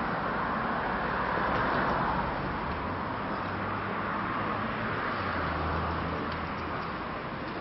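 City street traffic: a steady wash of road noise, with a vehicle engine humming low in the middle.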